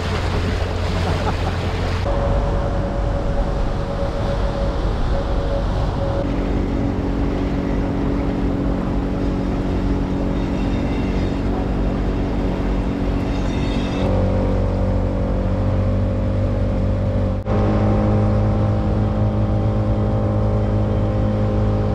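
An engine running steadily, heard from on board, as a low drone whose pitch changes abruptly a few times.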